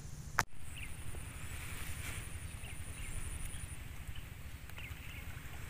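Outdoor ambience: a steady low rumble with scattered faint short chirps and a thin high tone that stops midway, after a sharp click about half a second in.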